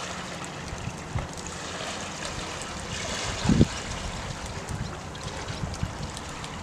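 Small waves washing over stones and pebbles at the shoreline, with wind on the microphone; a dull thump about three and a half seconds in is the loudest moment.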